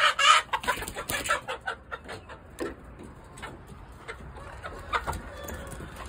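Chickens clucking, a quick run of clucks in the first second or two that thins out to a few scattered clucks.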